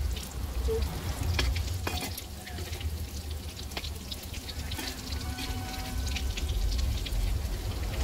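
Bread-coated potato cutlets frying in hot oil in a kadhai, sizzling steadily, with a few light clicks as they are turned. A steady low rumble runs underneath.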